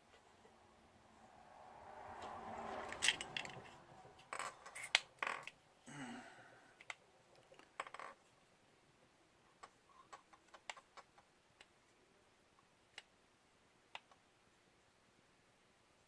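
Quiet handling sounds of small parts and tools: a rustle swelling over the first few seconds, a cluster of clicks and knocks about four to eight seconds in, then sparse light clicks.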